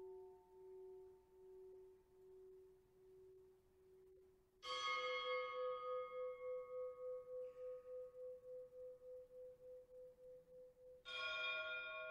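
A bell struck twice, about 4.5 s and 11 s in, while an earlier stroke is still dying away. Each stroke gives a clear ringing tone that fades slowly with a steady wavering pulse. The second stroke is higher in pitch than the one dying away at the start.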